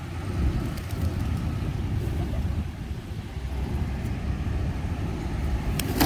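Steady low rumble of street traffic noise, with a few faint clicks.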